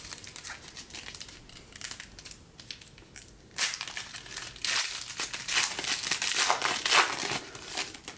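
Foil trading-card pack wrappers crinkling and rustling as a pack is torn open and handled, louder from about halfway through.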